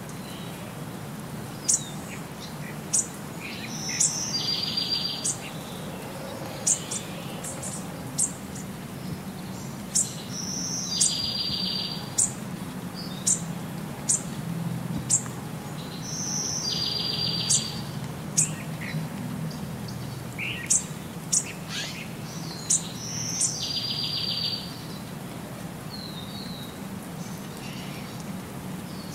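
Birds singing: many short, sharp, high chirps, and about every six seconds a short buzzy trill, over a low steady hum.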